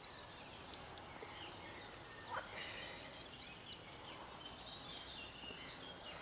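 Faint chirping and trilling animal calls, many short overlapping calls, with a brief soft tap about two and a half seconds in.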